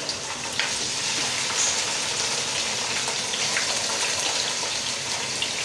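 Raw chicken pieces frying in hot oil in a nonstick karahi: a steady sizzle with a few faint ticks.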